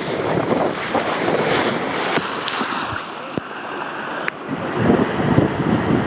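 Water rushing and splashing around a rider sliding feet-first down an open body slide flume, with wind noise on the microphone. The rush thins about two seconds in and grows louder again near the end.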